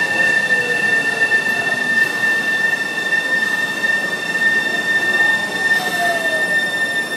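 Nankai 1000 series electric commuter train slowing to a stop at a station platform. It gives a steady high-pitched squeal, with a lower whine that falls in pitch near the start and again about six seconds in as the train decelerates.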